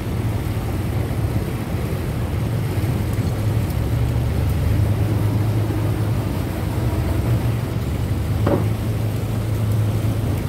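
Small riverboat's engine running steadily under way, a low drone. A brief higher-pitched sound cuts in once about eight and a half seconds in.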